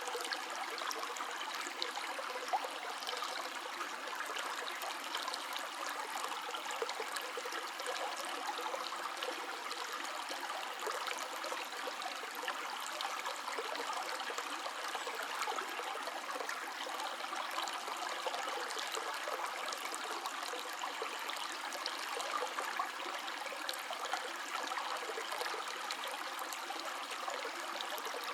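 River water flowing: a steady, even rush with many small splashes and no low rumble.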